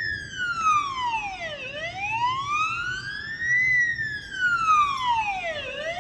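A siren wailing. Its pitch slides slowly down, up and down again, each rise or fall taking about two seconds.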